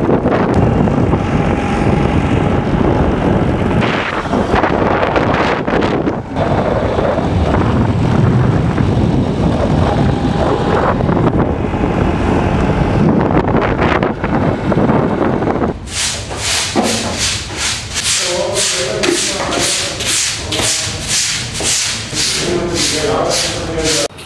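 Wind buffeting the microphone while riding along an open road. About two-thirds in it gives way to a rhythmic pulsing, about two beats a second.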